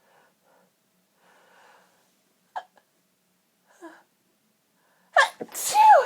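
A woman's sneeze fit: faint breaths and two short hitching catches of breath, then a sudden sneeze about five seconds in, ending in a voiced cry that falls in pitch.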